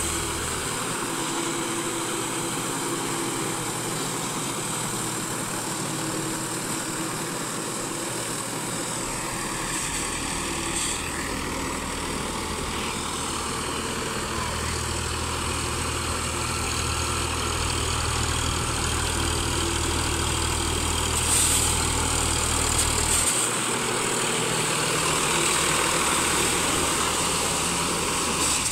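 Sonalika DI 745 tractor's diesel engine running steadily under load as it drives a rotavator through wet paddy mud.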